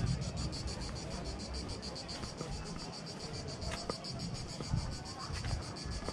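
Cicadas shrilling in a fast, even pulse, several beats a second, over low thumps and rumble from footsteps and wind on the microphone.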